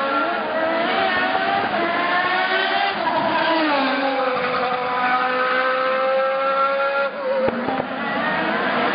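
Open-wheel race cars running at high revs on a street circuit, several engine notes overlapping. One note falls sharply about three to four seconds in as a car goes past close by.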